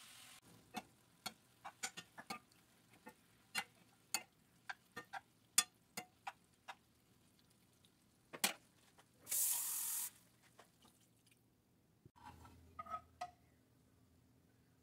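Metal spoon clinking and scraping against a cast-iron skillet while beef is stirred, in a string of sharp clinks, then a brief sizzling hiss about nine and a half seconds in.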